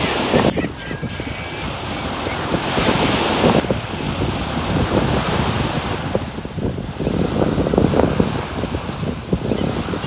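Waves washing in, with wind buffeting the microphone; the noise surges louder at the start and again about three seconds in.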